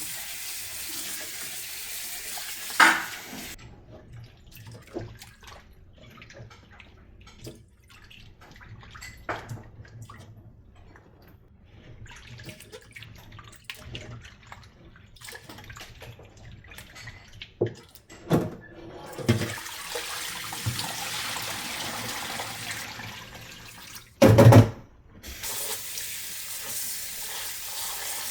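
A kitchen tap running into a sink, turned off after a few seconds and back on for the last third, with small clicks and handling sounds while it is off and one loud knock about three-quarters of the way through.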